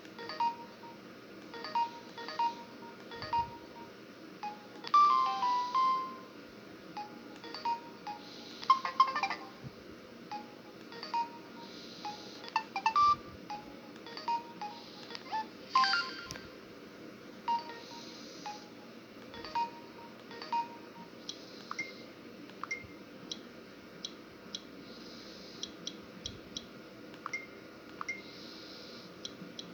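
A Samsung U900 Soul mobile phone ringtone playing: a sparse electronic tune of short notes and clicking ticks, busier in the first half and thinning out after about twenty seconds.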